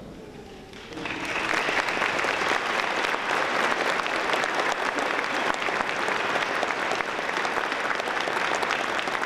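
Large audience applauding, starting about a second in and holding steady, a dense mass of clapping hands.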